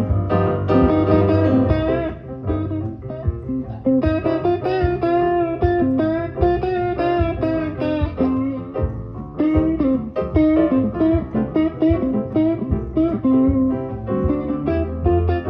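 Live guitar music with no singing: an instrumental passage of plucked guitar notes over a steady low end.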